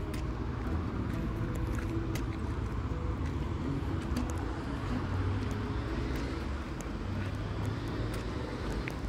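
Outdoor city ambience: a steady low rumble of road traffic, with a few faint clicks scattered through it.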